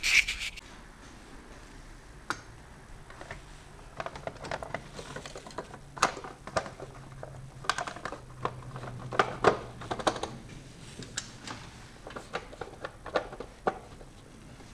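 Plastic upper timing-belt cover of a Renault 1.5 dCi engine being fitted by hand: irregular clicks, taps and knocks of plastic against the engine, the loudest a few seconds apart near the middle.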